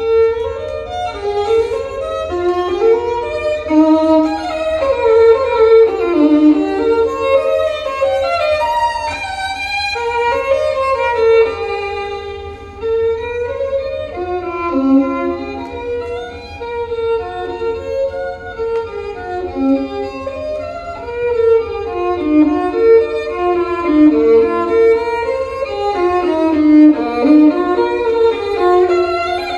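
Violin music played back on a high-end turntable system through large horn loudspeakers, heard in the listening room. A single flowing melodic line, with a steady low hum beneath it.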